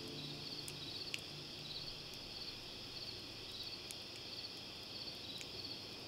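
Crickets chirping in a steady, even rhythm, with a few faint sharp clicks.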